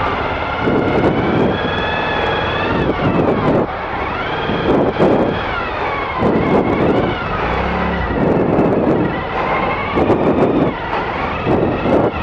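Adventure motorcycle engine, a Suzuki V-Strom 1000 V-twin, running at low revs while the bike is walked along, its pitch rising and falling repeatedly as the throttle and clutch are worked.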